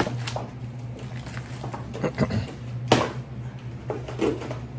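Clicks, knocks and rustling as children handle small plastic toys and packaging, with two sharper knocks, one at the start and one about three seconds in, over a steady low hum and brief faint voices.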